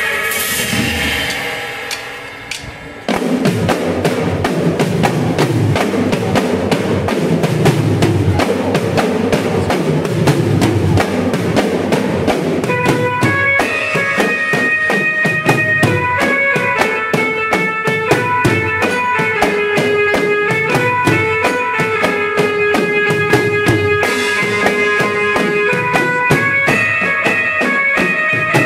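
Street band of dhol drums and an Indian banjo: the drums come in suddenly about three seconds in with a loud, fast, dense rhythm, and about ten seconds later the banjo joins, playing a melody of quick repeated notes over the drumming.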